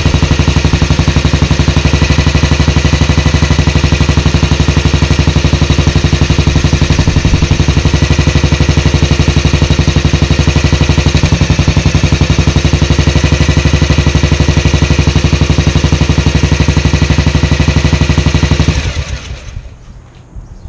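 1954 Matchless G3/LS 350 cc single-cylinder four-stroke engine idling with an even, steady beat of exhaust pulses, running for the first time since being rebuilt after 30 years in pieces. Near the end the engine stops and the sound dies away over about a second.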